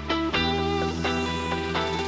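Background music: plucked-string notes over sustained low bass notes.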